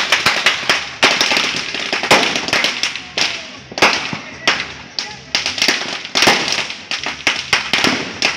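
Firecrackers going off in a burning año viejo effigy: loud bangs about once a second amid a constant crackle of smaller pops.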